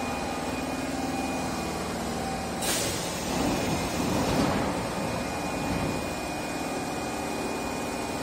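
Osaka Metro 21 series subway train standing at the platform, its equipment giving a steady hum with a thin high tone. About two and a half seconds in comes a short burst of air hissing from its pneumatic system.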